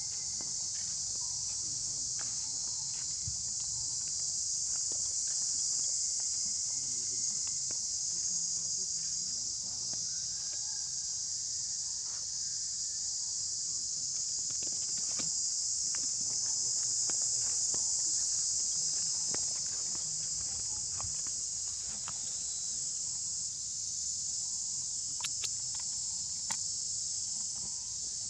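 A steady, high-pitched insect chorus drones without a break, with faint scattered clicks and rustles of small movements on dry ground.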